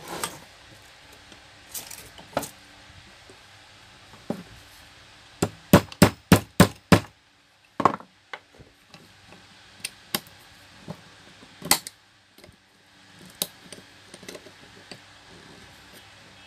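Metal parts of a dismantled fan motor and pliers clinking and knocking on a workbench, with a quick run of about six sharp taps about halfway through.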